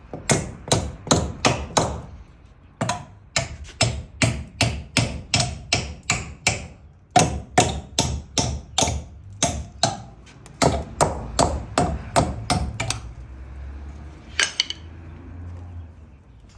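Hammer blows struck in quick runs of about three a second, with short pauses between runs. The hammering stops about thirteen seconds in, and one last sharper knock follows.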